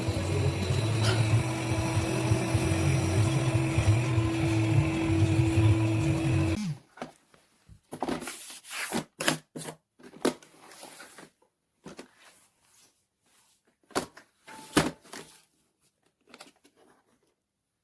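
BPMIO robot vacuum and mop combo running with a steady motor hum and whine, which cuts off suddenly about seven seconds in. A scattering of short clicks and knocks follows.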